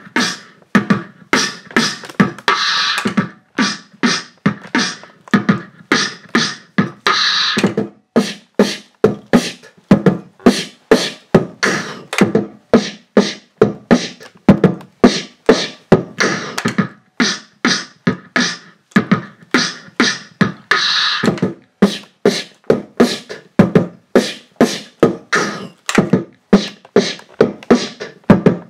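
Live looped beatboxing: mouth-made kick, snare and hi-hat sounds layered on a loop pedal, repeating in a steady beat of about three hits a second, with a long hissing cymbal-like sound coming back every four to five seconds.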